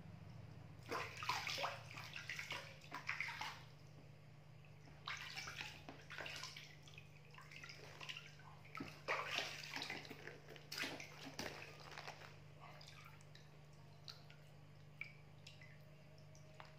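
Water splashing and sloshing in a small plastic baby bathtub as a baby monkey is dipped and washed by hand, in three bouts, then only a few drips near the end. A steady low hum runs underneath.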